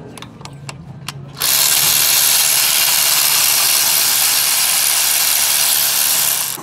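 Cordless electric ratchet turning a bolt on the water body housing. After a few light clicks, its motor starts about a second and a half in and runs loudly and steadily for about five seconds.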